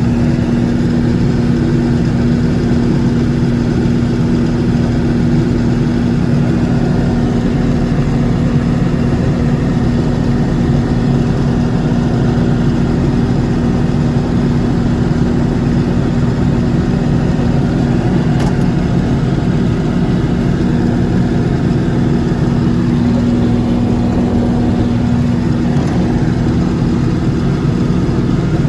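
John Deere 6620 combine running steadily under harvest load, its engine and threshing machinery making a continuous drone with a steady hum.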